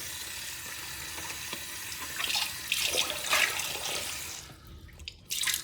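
Water running from a tap into a sink, with louder splashing partway through, shut off about four seconds in; a short knock near the end.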